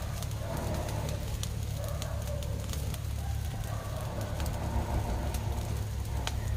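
Wood fire crackling under catfish grilling on a wire rack, with scattered sharp pops, over a steady low background hum.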